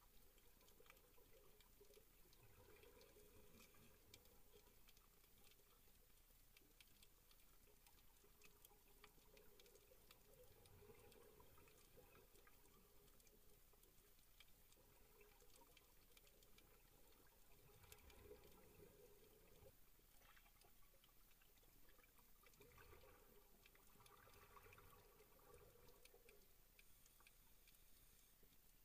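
Very faint underwater reef ambience: a steady scatter of small crackling clicks, with a soft swell about every seven seconds.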